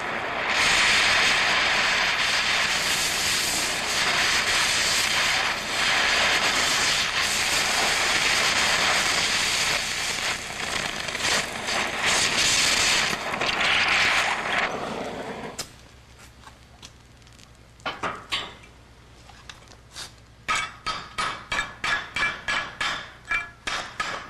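Oxy-acetylene cutting torch hissing steadily with its cutting oxygen jet on, washing a nut off a bolt down to the threads; the hiss stops suddenly about two-thirds of the way through. After a short pause come light metallic taps, at first a few, then a quick run of about three a second.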